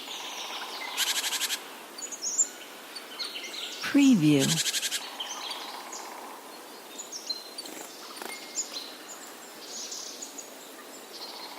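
Spring forest birds chirping and singing, scattered short calls and whistles from several birds, with a rapid buzzy trill about a second in and another around four seconds in.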